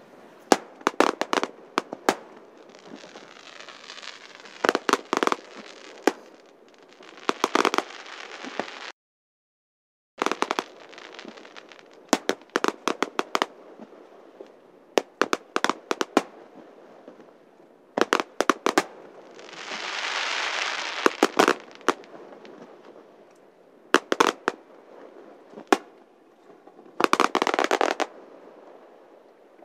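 Aerial firework shells bursting one after another with sharp bangs, with bouts of dense crackling and a longer hiss about twenty seconds in. The sound cuts out completely for about a second, around nine seconds in.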